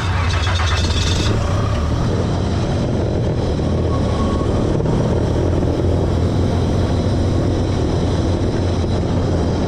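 Holden Commodore V6 (the 3.8-litre Buick V6), converted to run on methanol, running at a fairly steady speed as it drives a wingless sprint car across dirt, heard from the car's own cockpit.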